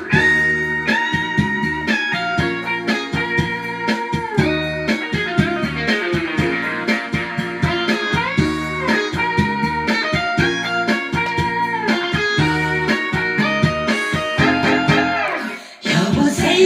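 Instrumental break of a pop song: an electric guitar plays a lead melody with bent notes over bass and drums, dropping out briefly near the end.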